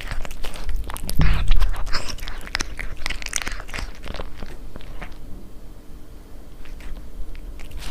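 A cat chewing and crunching food close to the microphone: a quick, irregular run of crunches that thins out past the middle.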